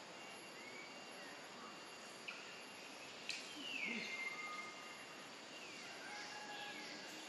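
Faint high-pitched animal calls that glide down in pitch. The clearest comes about three and a half seconds in, just after a sharp click, and holds its note for over a second; shorter falling calls follow near the end.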